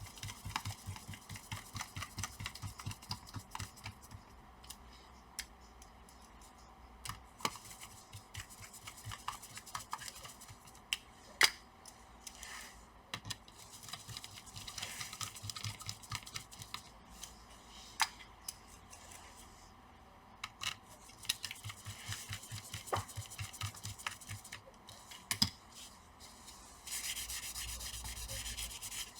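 Screws being driven into a laptop cooling fan by hand screwdriver: faint scraping and rubbing of the bit in the small screw heads, with scattered light clicks of metal and plastic. A steadier scratchy rubbing starts near the end.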